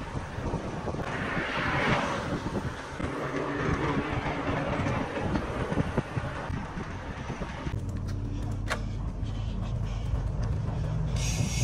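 Wind noise on the microphone and the riding noise of a bicycle moving along with a group of cyclists. About eight seconds in, the sound changes to a steadier low rumble.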